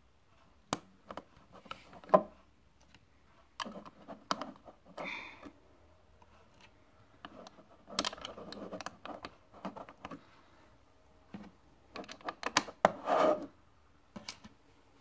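Plastic Lego bricks and plates clicking and clattering as they are handled and pressed onto a model: scattered sharp clicks with a few short spells of rattling and rubbing, the loudest clicks about two seconds in and near the end.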